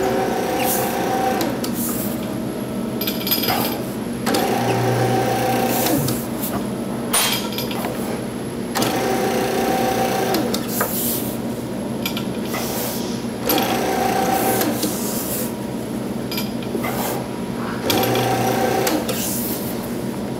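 Electric tube-rolling machine running as a stainless steel handrail tube is fed through its rolls to bend it into a spiral. The motor hums steadily and grows louder for a second or two about every four seconds.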